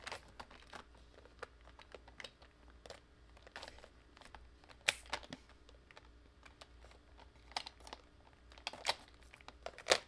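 Small plastic Tic Tac containers filled with diamond-painting drills being set and shuffled into rows in a plastic storage box, making irregular light clicks and clacks, with sharper knocks about five seconds in and near the end.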